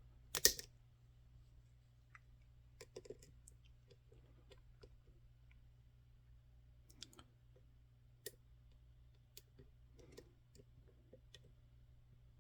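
Lock pick clicking and tapping inside an EVVA ICS high-security lock as the pins are worked under tension: a couple of louder clicks about half a second in, then scattered faint clicks.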